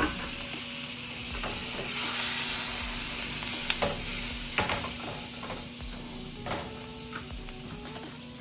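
Salted butter sizzling as it melts in a hot skillet, the hiss swelling about two seconds in, with a few sharp clicks of a utensil against the pan.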